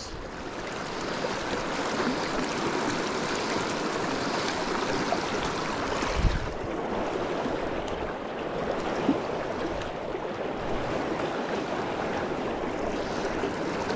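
Fast, high-running river water rushing over a rocky riffle around a wading angler: a steady rush, with a brief low thump about six seconds in.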